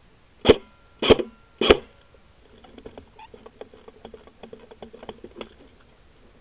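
Three airsoft rifle shots fired in quick succession, about half a second apart, followed by a scattered run of faint light ticks.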